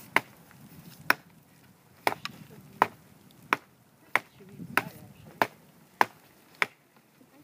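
Chopping at tree bark: about ten sharp strikes, roughly one every two-thirds of a second.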